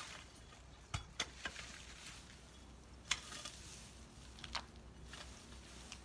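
A long-handled tool chopping into dense weeds and vines: irregular sharp chops with the crunch and rustle of cut stems, the loudest about three seconds in.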